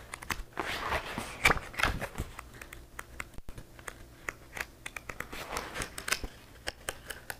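Sheets of construction paper and craft supplies being shuffled and rustled by hand in a search for a missing piece of paper, with irregular small taps and clicks.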